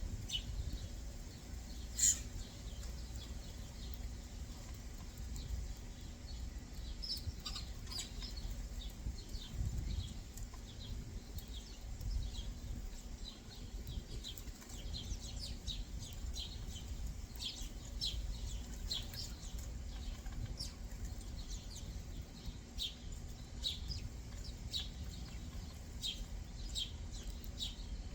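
Backyard songbirds chirping: many short, high chirps scattered throughout. There is a single sharp click about two seconds in.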